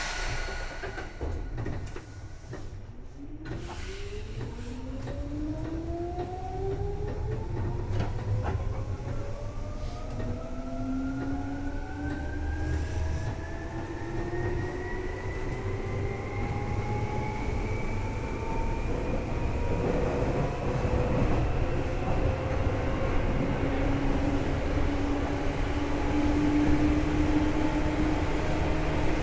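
Seibu 2000 series electric train accelerating away: the traction motor and gear whine rises steadily in pitch over about twenty seconds and levels off near the end, over a constant low rumble of the running gear. Sharp clacks come at the start and about three and a half seconds in.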